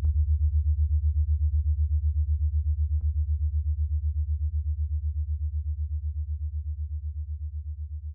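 A low synthesizer bass tone pulsing about six or seven times a second, slowly fading out, with a few faint clicks.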